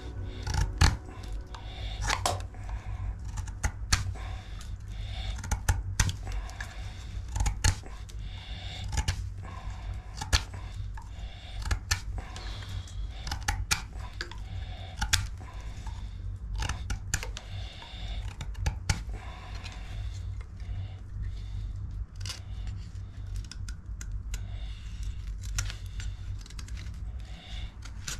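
Cold Steel Pocket Bushman folding knife working wood: irregular sharp clicks and scrapes, about one or two a second, over a steady low rumble.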